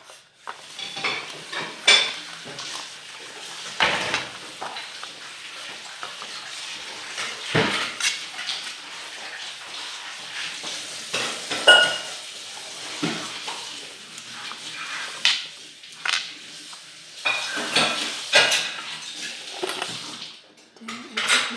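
Butter being spread around the inside of an aluminium cake pan to grease it, with irregular clinks and scrapes of a metal utensil against the pan.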